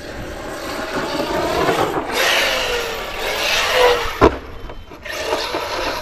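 Brushless electric motor of an Arrma Kraton 6S RC monster truck revving up and down in bursts, its whine rising and falling over gritty tyre and drivetrain noise, with one sharp knock about four seconds in. The motor isn't sounding good, which the owner puts down to the 1730 kV Hobbystar motor running hot.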